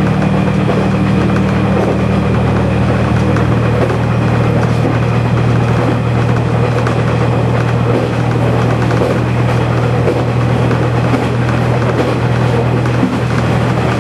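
KiHa 120 diesel railcar's engine running steadily under way, with wheel and rail noise, heard from inside the driver's cab; about two seconds in, the engine note settles lower.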